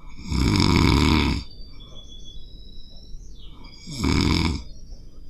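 A person snoring heavily in their sleep: two loud snores, the first about a second long and the second shorter, about three seconds later.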